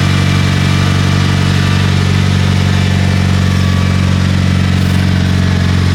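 Engine idling steadily, a low even hum that holds the same pitch throughout.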